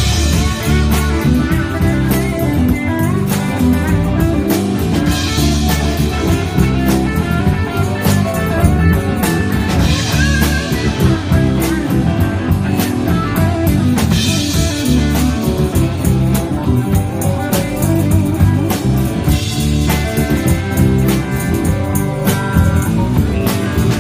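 Live band playing: electric bass guitar, electric guitar and a drum kit with cymbals, in a blues-rock style.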